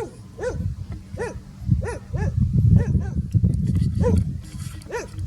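A dog barking in short separate barks, about seven in five seconds, over a steady low rumble.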